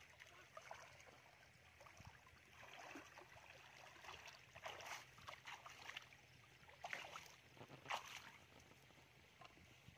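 Faint water splashing and sloshing as people wade through a shallow muddy stream, with a few brief, louder splashes about halfway through and near the end.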